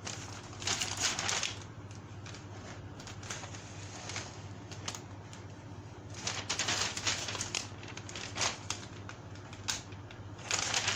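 Kit parts and their packaging being handled and unpacked, rustling and crinkling in several short bursts over a steady low background hum.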